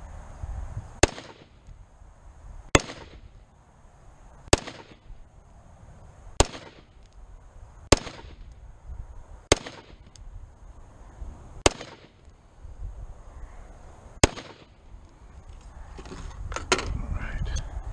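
Springfield Saint Edge semi-automatic AR-15 rifle firing eight single shots, each a sharp crack with a short ringing tail, spaced about one and a half to two and a half seconds apart. A few lighter clicks and rattles follow near the end.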